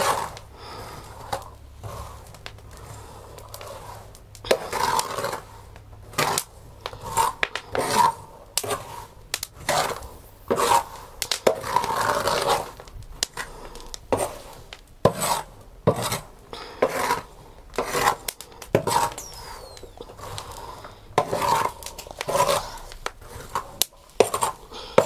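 Metal scraper turning chickpeas as they roast in hot sand on an iron sac griddle: repeated scraping strokes across the iron, about one or two a second, with the chickpeas rattling and sliding. The chickpeas are near done and are being turned quickly so they don't burn.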